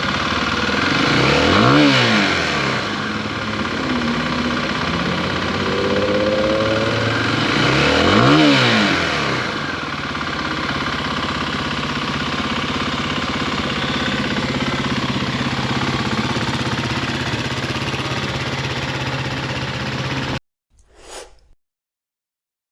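Kawasaki KLX300's single-cylinder engine idling and blipped twice, about two seconds in and again about eight seconds in, each rev rising and dropping back to idle. The engine sound cuts off abruptly near the end.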